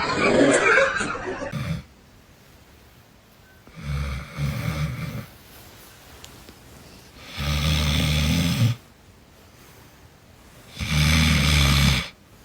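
Loud snoring: three long snores, each about a second or more, spaced about three and a half seconds apart, with quiet breathing between. Before them, a loud noisy sound cuts off abruptly just under two seconds in.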